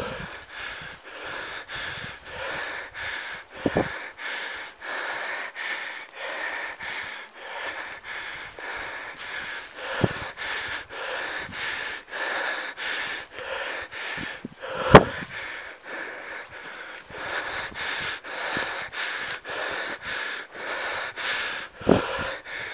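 A person breathing audibly while walking briskly through dry leaves and brush, footfalls rustling about two to three times a second. A single sharp knock stands out about fifteen seconds in.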